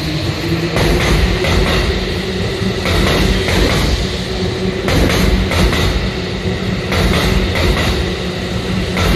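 Tokyo Metro 16000 series electric train pulling out of the station at low speed, its cars rolling past close by. A steady electric hum runs over the rumble, with irregular clicks of the wheels over rail joints.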